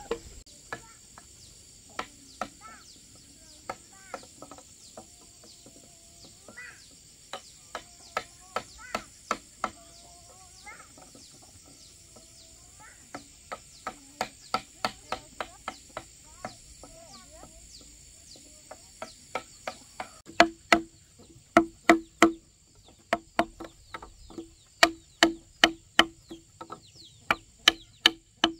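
Hammer driving a wood chisel into a timber beam to cut a mortise: a steady series of sharp knocks, about two a second. The knocks are faint at first and become much louder about two-thirds of the way in.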